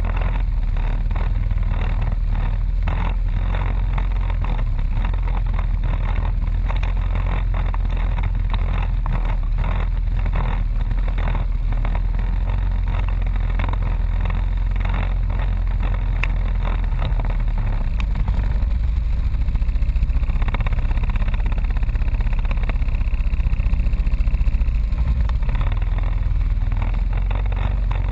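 ATV engine running on a rough off-road trail, with a deep rumble and constant knocking and rattling from the machine jolting over bumps. About two-thirds of the way through the engine gets louder, with a higher whine, for several seconds before settling back.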